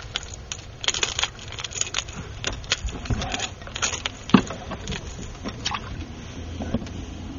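Metal fishing pliers and a red lure's treble hooks clicking and rattling as the hooks are worked out of a black bass's mouth, with one louder knock about four seconds in.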